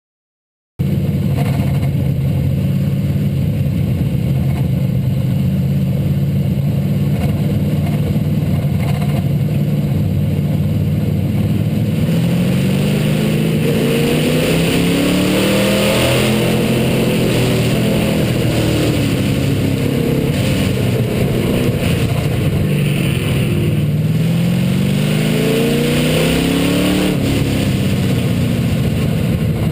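Hobby stock race car's engine, heard from inside the car, cutting in about a second in and running steadily at first. From about halfway through, its pitch rises and falls again and again as the car accelerates and lifts around the track.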